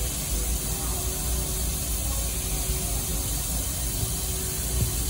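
Steady hiss with a low hum and a faint constant tone from running shop equipment, such as the cooling fans of the plasma table's power supply or controller, running idle.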